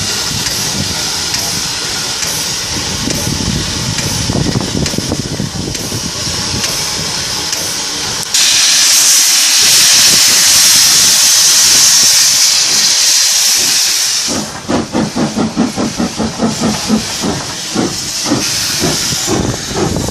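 Steam locomotive No. 564 standing with a steady hiss and low rumble. About eight seconds in, a sudden loud blast of steam from the open cylinder drain cocks lasts some six seconds; then the engine moves off with chuffing exhaust beats, about two to three a second.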